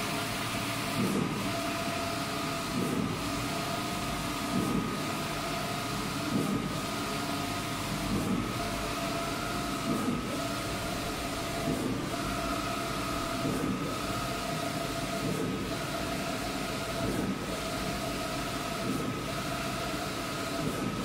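Large-format inkjet printer printing a banner: the motor-driven print-head carriage sweeps back and forth with a steady whine, with a brief louder bump at each turn, about every two seconds.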